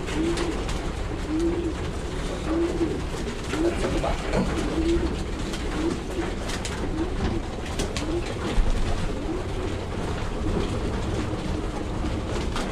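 Racing pigeons cooing over and over, about once every second, with scattered short clicks and wing flaps as they peck at feed in a trough.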